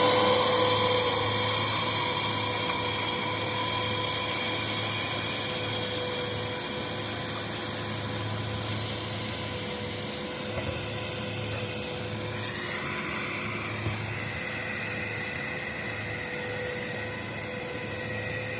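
A machine runs with a steady high whine that slowly fades, with a few faint clicks over it.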